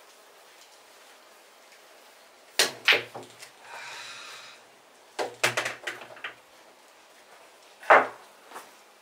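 Billiard balls clacking on an outdoor pool table: the cue striking the cue ball and balls knocking into each other and the rails. There is a pair of sharp clacks about two and a half seconds in, a quick run of them around five to six seconds in, and one loud clack near the end.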